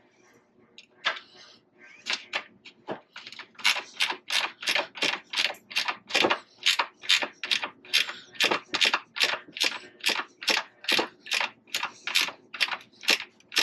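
Hand ratchet wrench worked back and forth on a bolt, each back-swing giving a short burst of clicks, about two and a half strokes a second in a steady rhythm.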